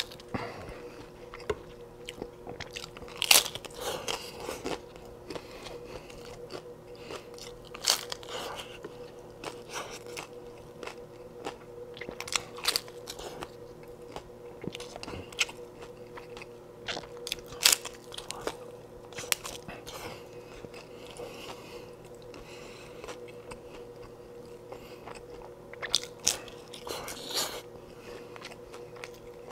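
Crisp corn taco shells crunching as they are bitten and chewed, with loud, irregular crunches and steady chewing in between. A faint steady hum runs underneath.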